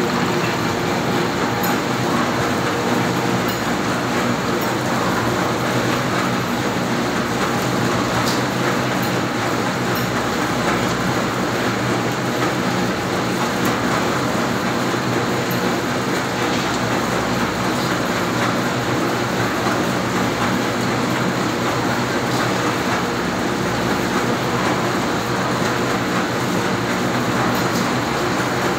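Cottonseed oil mill machinery running steadily: a dense, even mechanical drone with a hum of several steady tones underneath.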